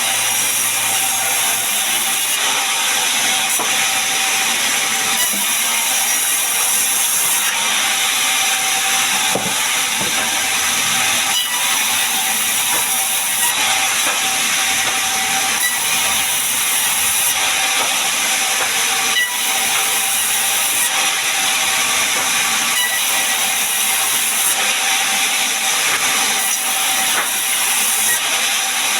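Large sawmill saw running steadily, most likely cutting gmelina timber, as one even, unbroken hiss with a faint steady tone under it.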